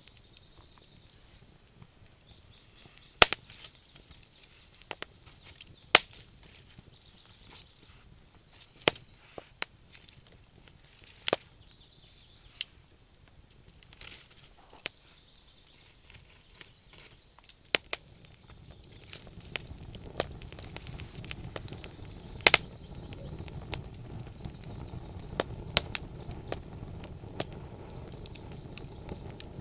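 Wood campfire crackling, with sharp irregular pops and snaps every second or two. After about twenty seconds a steady low rushing sound comes up and stays under the pops.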